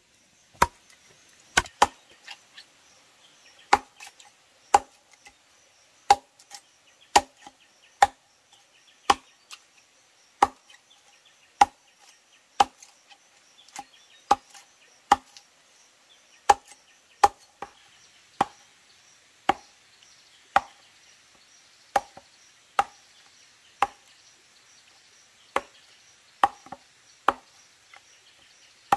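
A blade chopping into wood in sharp single strokes, roughly one a second with an occasional quick double stroke, each stroke giving a short ringing knock.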